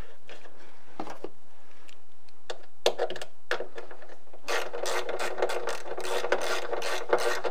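Hand ratchet clicking as an 8mm screw is driven back in: a few scattered clicks at first, then quick continuous ratcheting from a little past halfway.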